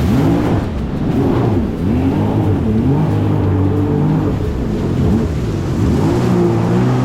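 Jet ski engine running at speed, its pitch rising and falling over and over as the revs swing.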